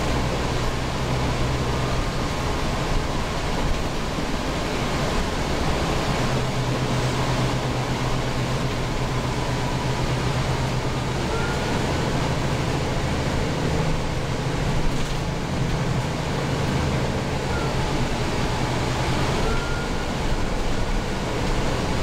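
Interior ride noise of a New Flyer Xcelsior XD40 diesel bus under way: the rear-mounted Cummins ISL9 engine droning low under a steady rush of road and air noise, the drone growing stronger for several seconds in the middle. A few faint short chirps come in the second half.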